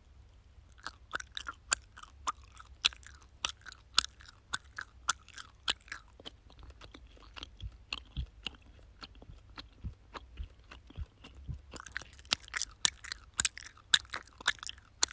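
A mouth chewing gum: sharp, moist clicks at a steady rhythm of about two a second, softer for a few seconds in the middle, then coming faster and louder near the end.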